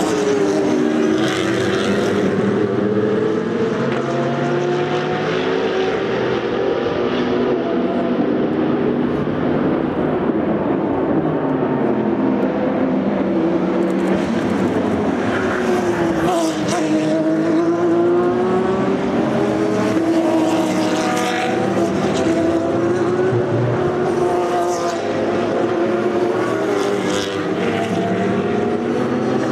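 Several racing cars with open exhausts passing at speed one after another, their engine notes rising and falling with gear changes and as each car goes by, with no break between them.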